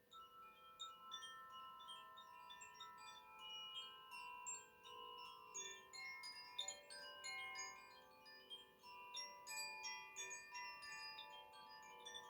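Koshi chimes ringing faintly: many soft, overlapping ringing notes struck at irregular moments, each left to ring out.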